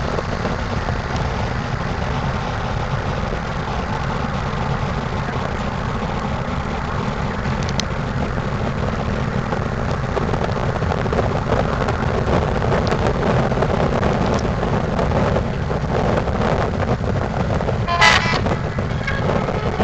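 Steady low rumble of river cruise-ship engines mixed with wind noise on the microphone. One short horn toot sounds about two seconds before the end.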